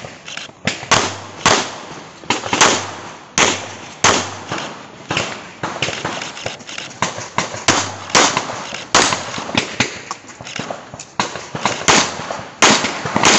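Handgun shots fired in quick, irregular strings during a practical-shooting (IPSC) stage run. The sharp reports come up to several a second, each with a short echo.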